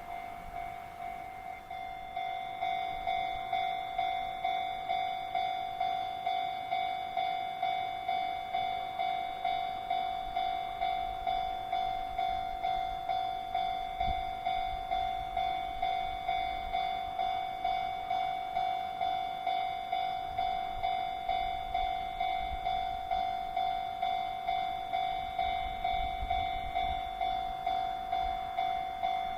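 Japanese level-crossing warning bell ringing, a ding at a steady rate of nearly two strikes a second. It grows louder about two seconds in. A faint low rumble from the railway lies underneath near the end.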